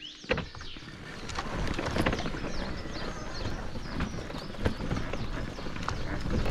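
Steady rustling and crunching of movement along a woodland path, full of small clicks, with birds chirping high above it.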